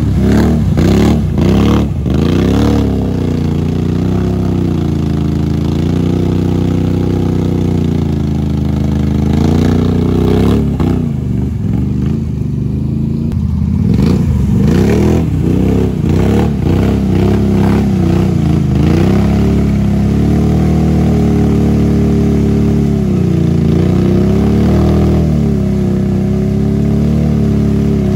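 ATV engine revving up and easing off over and over as the quad churns through a muddy water hole, its tyres splashing through the mud and water.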